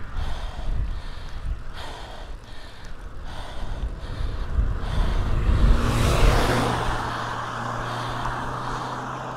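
Wind buffeting the microphone and a cyclist's heavy breathing on a steep climb. About six seconds in a motor vehicle passes, its noise swelling and then leaving a steady low engine hum for several seconds.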